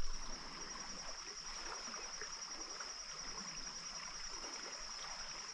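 Small creek running steadily, with a steady high-pitched insect drone over the water.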